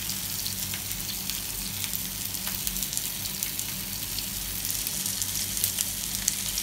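Green chilies in a spiced onion-tomato masala sizzling in oil in a wok: a steady hiss with frequent small crackling pops. A low steady hum runs underneath.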